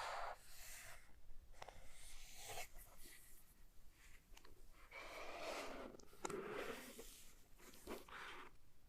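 Faint, irregular rustling and scraping of packaging being handled, with a few light clicks.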